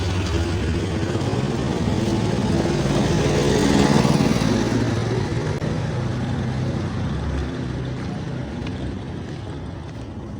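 Motor vehicle engine running with road and traffic noise while travelling, a steady low hum that swells about four seconds in and eases off toward the end.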